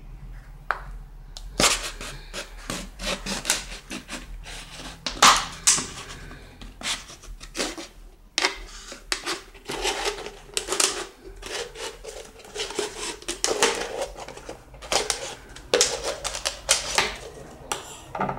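Small knife sawing and cutting through a thin plastic soda bottle, the plastic crackling and crinkling in irregular bursts.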